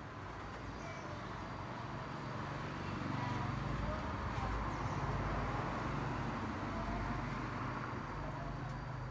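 A motor vehicle's engine running over street background noise, growing louder in the middle and easing off again, with faint voices.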